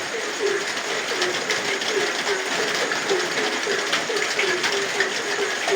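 Frogs calling in short, quick notes, about three or four a second, each dropping slightly in pitch, over steady rain with drops pattering and ticking.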